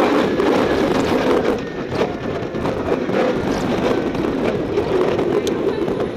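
Robin Hood wooden roller coaster train running along its wooden track at speed: a loud, continuous rumble and rattle from the wheels and cars, with scattered clacks.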